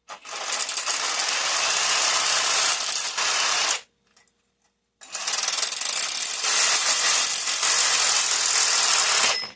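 A power tool runs in two bursts of about four seconds each, with a short pause between, most likely working the aluminum bus-bar stock.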